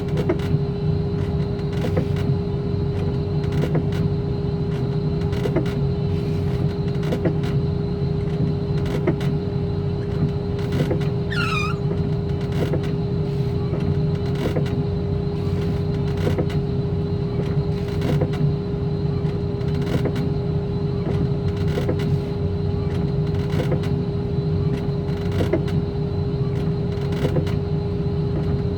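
An engine running steadily with a constant hum, with a faint tick repeating about every second and a half to two seconds. About twelve seconds in comes a brief high whistle falling in pitch.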